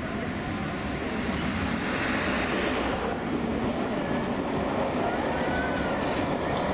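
Tatra T3 tram approaching on street track, a steady rumble of wheels on rails that grows slightly louder as it nears, over city street noise.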